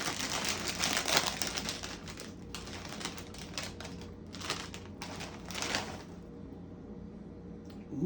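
Crinkly foil snack bag being handled and pulled open, with dense crackles and rustles that die down about six seconds in.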